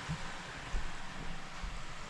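Oil sizzling steadily in an electric deep fryer as a basket of potato fries cooks, with a few soft low bumps.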